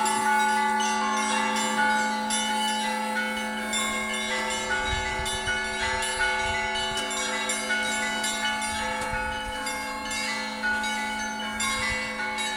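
Russian Orthodox church bells ringing: quick, repeated strikes of the smaller, higher bells over the long, sustained hum of the larger bells.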